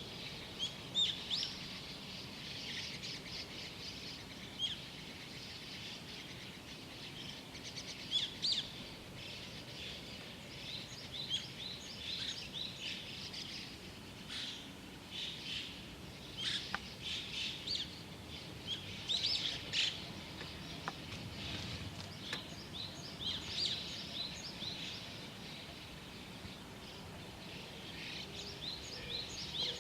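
Several small songbirds chirping and twittering at dawn, many short overlapping calls and trills, over a faint steady background hum.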